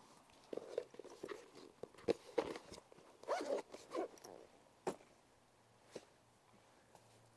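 A zipper on a soft equipment bag being pulled, among the clicks and knocks of test gear being handled and set down.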